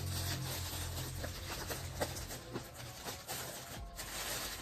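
Loose clear plastic wrap crinkling and rustling as it is pulled off a cardboard box, with many small crackles.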